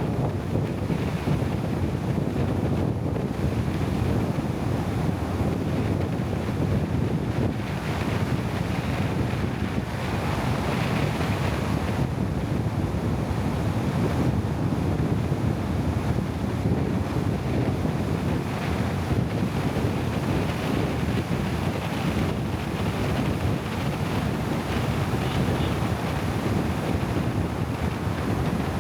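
Steady wind buffeting the microphone over a continuous low rumble, with no distinct events.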